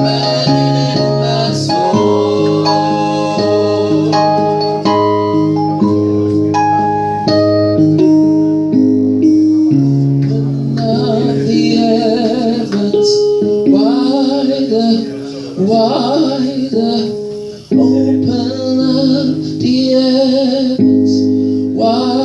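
Worship music: instruments playing held chords, with singing coming in about halfway through.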